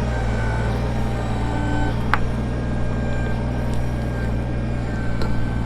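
Kubota BX23S tractor's three-cylinder diesel engine running steadily under backhoe work, with a higher hydraulic whine that comes and goes as the controls are worked on a stump. A single sharp clank about two seconds in.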